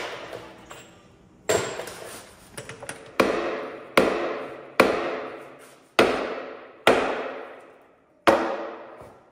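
Sledgehammer blows on a trailer's steel dual wheels, about eight heavy strikes roughly a second apart, each ringing out before the next. It is an attempt to knock seized wheels loose from the hub.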